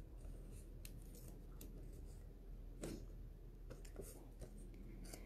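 Faint rustles and a few soft, scattered clicks as tape is handled and pressed onto a small piece of cardstock.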